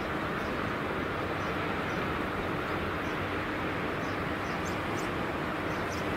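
Steady roar of a jet airliner's engines heard from the ground, with faint short high chirps over it.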